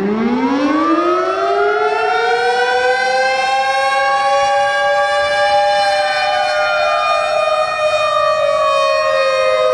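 Civil defense siren sounding a chord of several tones: it winds up in pitch over the first couple of seconds, holds a steady wail, then begins slowly winding down from about six seconds in.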